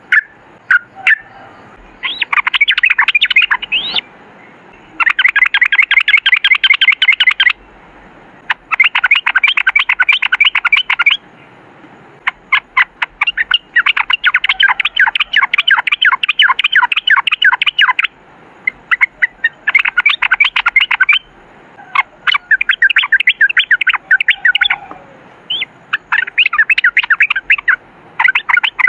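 Yellow-vented bulbul (trucukan) singing its long rapid rolling song: bursts of fast, chattering notes a few seconds long, repeated about seven times with short pauses and scattered single calls between them.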